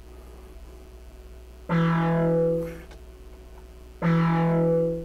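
Modular synthesizer oscillator playing a buzzy low note, gated on and off by the Gate Grinder module's gate clock. The note sounds twice, a little under two seconds in and again about four seconds in, each lasting about a second, with its bright upper partials fading while the low tone holds.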